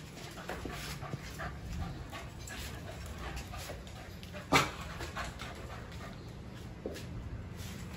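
Dogs panting behind a metal pet fence, with one short, sharp knock about halfway through.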